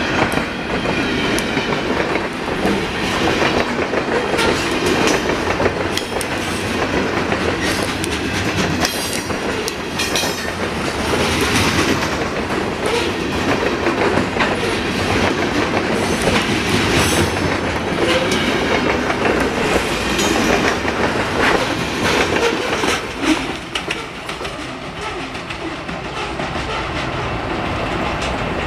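Freight train's boxcars and hopper cars rolling past close by, steel wheels clickety-clacking over the rail joints. The sound drops off about 23 seconds in as the last cars pass and roll away.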